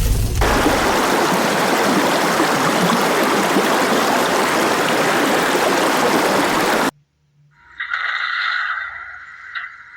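Loud, steady rushing noise like running water that cuts off suddenly about seven seconds in. After a brief silence, a fainter steady high whine follows.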